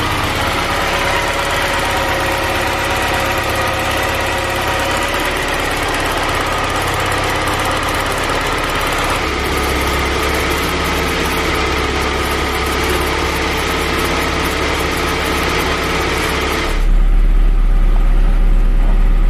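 A 1990 Saab 900S's 16-valve four-cylinder engine idling steadily. Near the end it is heard from inside the cabin, louder and deeper.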